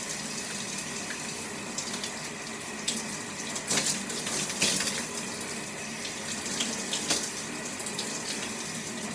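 Water running steadily as hair is rinsed under it, with a few brief splashes.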